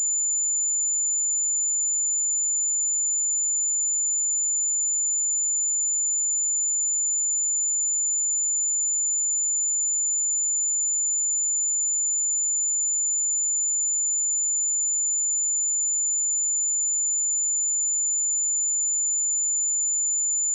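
A pure 7046 Hz sine-wave test tone, a single steady high-pitched whistle held at constant loudness without a break.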